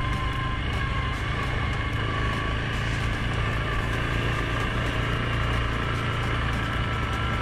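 2019 Suzuki KingQuad 750 ATV's single-cylinder engine running steadily while riding a dirt trail, with a few steady high tones above the engine.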